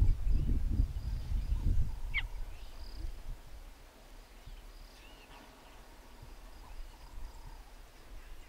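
Outdoor grassland ambience with a low rumble, loudest in the first two seconds, and one short high chirp about two seconds in, followed by a few faint high calls.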